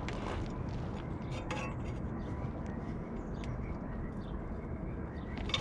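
Tin snips cutting the sheet-steel front brake dust shield: a few separate sharp metallic snips and clinks spread over several seconds, over a steady low background noise.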